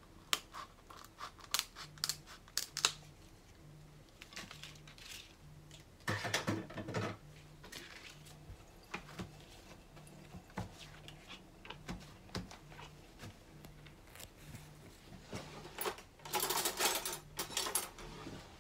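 Kitchen scissors cutting dry rice-paper sheets: a string of sharp snipping clicks at first, then crisp crackling as the blades run through the brittle sheet, once about six seconds in and again for a longer stretch near the end.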